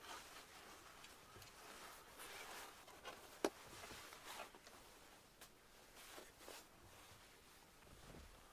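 Very quiet scattered rustling and soft handling noises, with one sharp click about three and a half seconds in.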